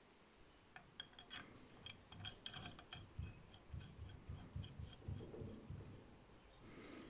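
Faint small metallic clicks and ticks as an engraving bit and its collet nut are handled and the nut is threaded onto the CNC router's stopped spindle, followed by a run of soft low knocks from the hands working at the spindle.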